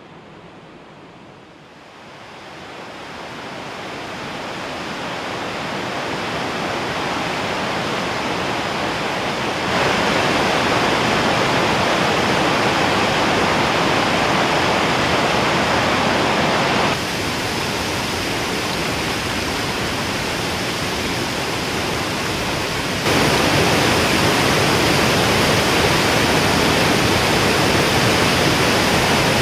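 Rushing river water over rocks, a steady noise of white water. It fades in over the first several seconds, then changes loudness abruptly three times, about ten, seventeen and twenty-three seconds in.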